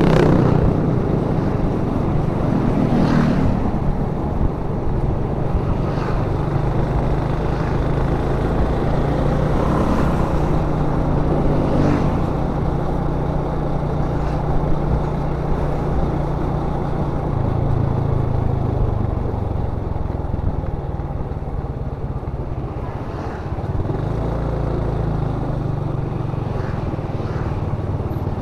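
Honda ADV150 scooter's single-cylinder engine running under way, with a steady rush of wind and road noise. The engine note eases off about two-thirds of the way through, dips briefly, then picks up again.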